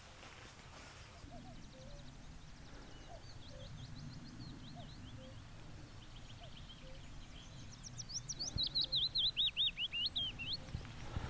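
A small songbird singing outdoors: series of quick high chirps, building to a louder, faster run of notes near the end, over a faint low background rumble.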